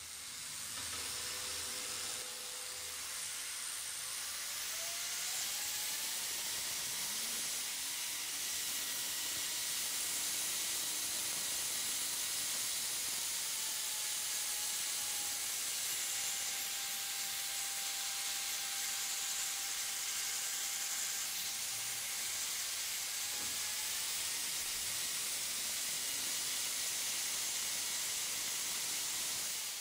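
Bosch angle grinder running free with no load on a test run after its carbon brushes were replaced, its rear cover off. A steady hiss of motor and fan air carries a motor whine that climbs over the first several seconds as it speeds up, sags a little in the middle, then climbs back.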